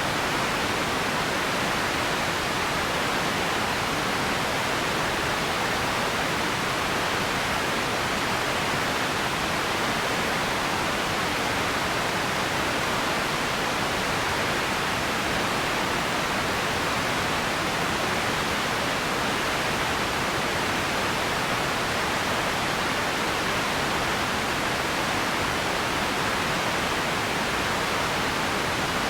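Steady ambience noise: an even, unchanging hiss, fullest in the middle range, with no tones, clicks or events.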